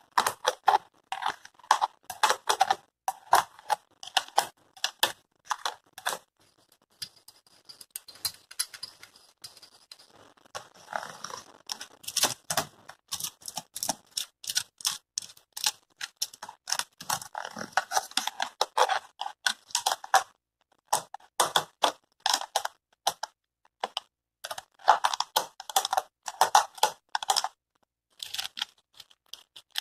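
A thin stick tapping and scraping across the materials of a textured collage, its spiral-shaped leaves, stones and matchsticks, in quick runs of dry clicks with short pauses.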